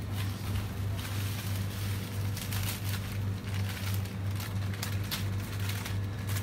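Plastic crisp packets crinkling and rustling as they are handled and stacked on shelves, the crinkling coming in clusters through the middle, over a steady low hum.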